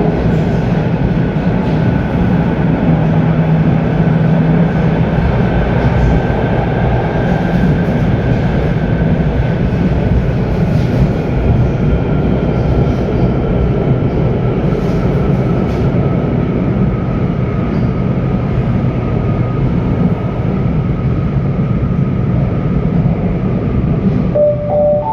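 Madrid Metro 9000-series (9400 subseries) Ansaldobreda electric train running at line speed on 1500 V, heard from inside the car: steady wheel and track rumble under a traction whine that slowly drops in pitch. An announcement chime sounds near the end.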